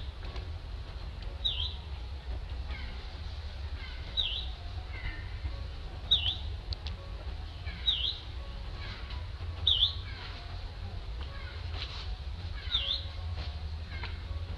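A bird repeating a short, high chirp that dips and rises, six times at intervals of about two seconds, with fainter falling notes between. Underneath runs a steady low rumble.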